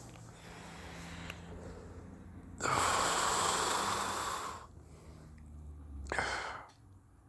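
A person breathing out hard close to the microphone, as when blowing out vape vapor: one long breath of about two seconds, then a shorter one about a second and a half later.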